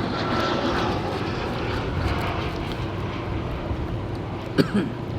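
A propeller or jet airplane's engines droning overhead as the aircraft passes, the sound slowly fading. There is a brief sharp sound near the end.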